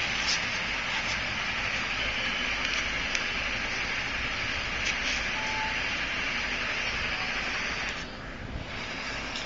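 Steady hissing background noise, such as a fan or cooler, with a few faint ticks; the hiss drops somewhat about eight seconds in.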